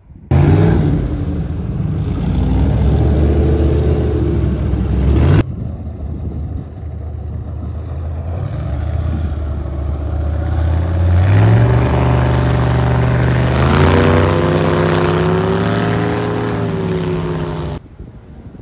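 Loud engine running and revving, its pitch rising about eleven seconds in and wavering after that. The sound cuts off abruptly about five seconds in and again near the end.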